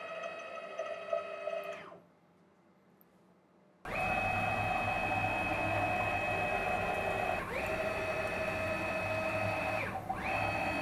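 Nema 34 stepper motors driving a CNC mill's table along its ball screws at rapid traverse, a steady high whine made of several pitches. First comes the open-loop drive at 160 inches per minute, cutting off about two seconds in. After a near-silent gap of about two seconds, the closed-loop steppers start louder at a higher feed, their whine dropping and rising again at each reversal, twice in the second half.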